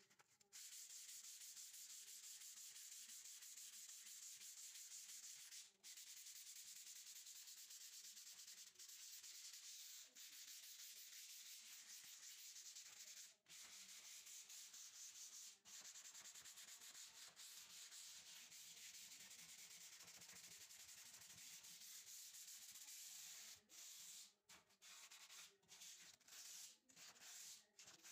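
Hand sanding with sandpaper wrapped around a block, rubbed over a white-coated cabinet panel: a faint, steady scratchy hiss broken by a few short pauses, with the strokes turning shorter and choppier near the end.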